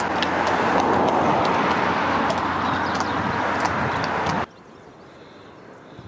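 Horses' hooves clip-clopping on a path under a loud rushing noise, which cuts off abruptly about four and a half seconds in, leaving only faint wind.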